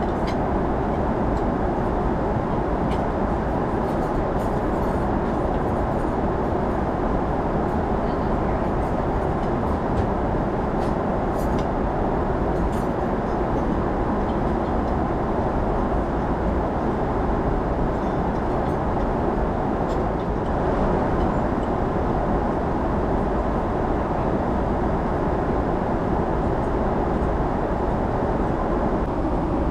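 Steady roar of jet engine and airflow noise inside a Boeing 777 airliner cabin, even and unchanging, with a few faint clicks in the first half.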